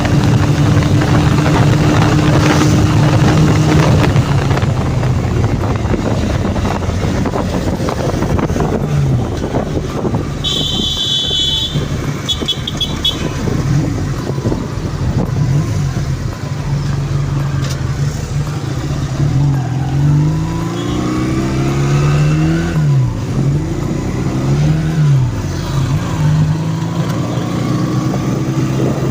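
Honda CD200 Roadmaster's twin-cylinder engine running under way, its pitch rising and falling again and again as the rider opens and closes the throttle through the gears. A vehicle horn beeps in a long blast and then a few short ones about a third of the way in.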